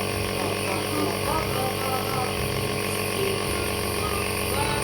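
Compressor nebulizer's motor running with a steady hum, with faint voices underneath.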